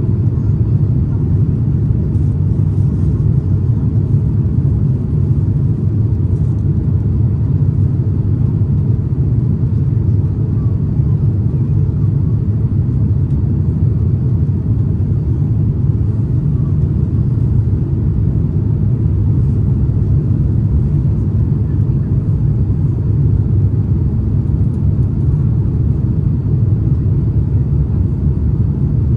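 Steady low cabin drone of an Airbus A350-900 in flight on approach: airflow over the fuselage and its Rolls-Royce Trent XWB engines, heard from inside the passenger cabin.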